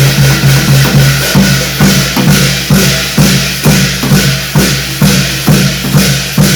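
Ritual drumming for a Korean shamanic gut: a steady beat of about two strokes a second over a continuous high wash of sound.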